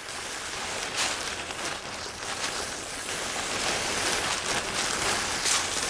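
A steady hissing rush of noise, starting abruptly, with a few soft brief swells.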